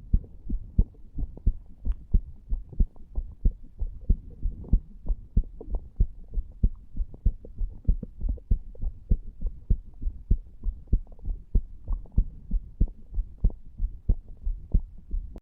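Human heartbeat recorded over the tricuspid valve area of the chest: a steady, regular train of low lub-dub thumps. It is recorded under the influence of cigar nicotine and cannabis, which the man expects to quicken and loudn the beat.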